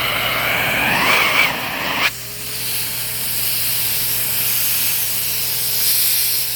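Hoover S3639 WindTunnel Plus canister vacuum running during a suction test, air rushing with a rising whistle. About two seconds in the sound cuts off sharply and settles into a steady hiss of air still leaking around the gauge fitting.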